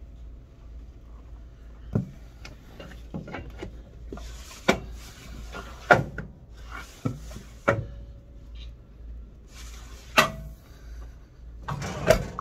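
A stack of paper being slid across the steel table of a paper guillotine cutter and knocked into position: scattered sharp knocks and short papery rustles, over a low steady hum.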